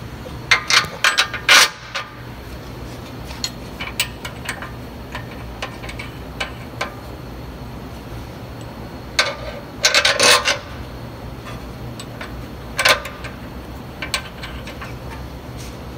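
Metal clinks and rattles of hand tools and bolts being handled while transmission bolts are started by hand, in three short clusters, over a steady low background hum.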